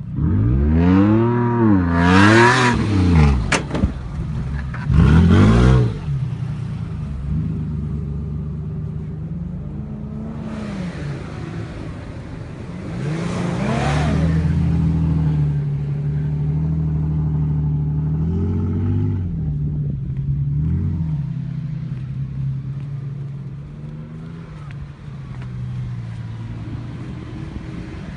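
A four-wheel-drive vehicle's engine revving hard several times in quick succession, pitch rising and falling, then running steadier under load with a few more rises as it drives through sand dunes.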